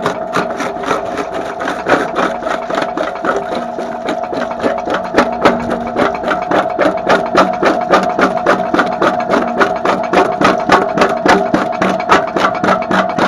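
Homemade jaw crusher running with a steady hum, its jaws knocking rapidly and evenly, a few times a second, as they crush lumps of coal.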